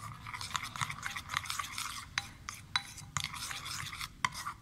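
A steel spoon beating a thick gram-flour batter in a glass bowl: continuous stirring, with frequent irregular clinks of the spoon against the bowl.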